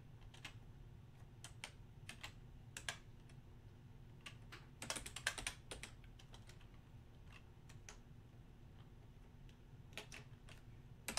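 Faint computer keyboard typing: scattered single keystrokes as a name is typed, deleted and retyped, with a quick run of keys about five seconds in.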